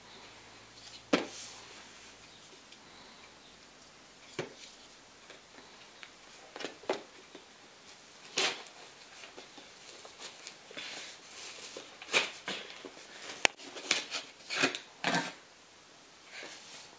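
Knife stabbing and cutting into a cardboard toy box: scattered sharp crunches and scrapes, one loud jab about a second in and a busier run of cuts from about twelve to fifteen seconds in.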